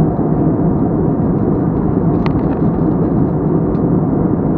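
Steady cabin noise of a jet airliner in flight: an even, deep rumble of engines and airflow heard from inside the cabin.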